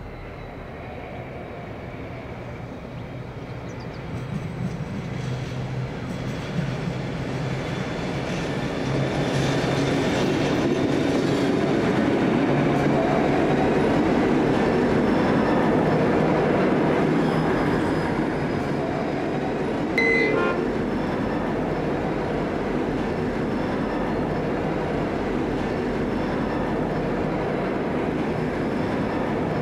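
G527 and BL31 diesel locomotives running light, engines and wheels growing louder as they approach and pass, loudest from about nine to seventeen seconds in. A brief ringing tone sounds about twenty seconds in.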